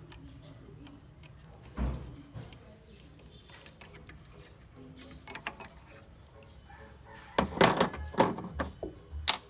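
Hand tools and small metal parts knocking and clicking against each other during work on a diesel engine: one knock about two seconds in, a few light clicks, then a loud cluster of clattering knocks near the end.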